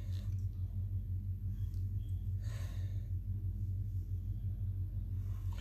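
A steady low hum, with a short soft breath about two and a half seconds in.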